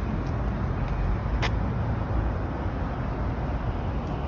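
Steady rumble of city street traffic, with one short sharp click about a second and a half in.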